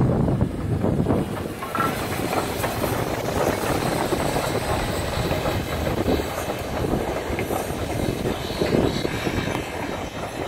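A vintage 4-4-0 steam locomotive and its passenger coaches rolling past close by, with steady running noise and irregular clanks and knocks from the train.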